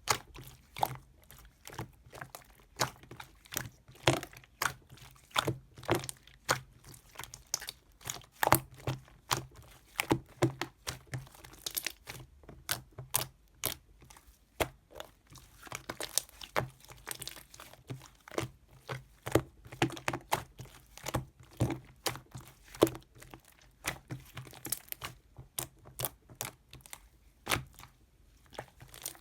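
Close-up crinkling and crunching: an irregular run of short, sharp crackles, several a second.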